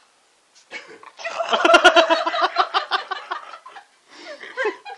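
A person laughing: a quick run of short, evenly spaced "ha"s that starts about a second in and lasts about two and a half seconds, then trails off into quieter vocal sounds near the end.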